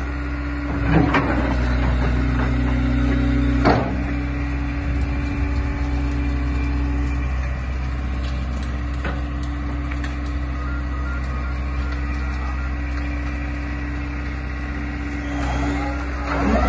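Liebherr A312 wheeled excavator's diesel engine running steadily while the boom and bucket are worked, with two sharp clunks about a second in and near four seconds. Near the end the engine revs up, its pitch rising.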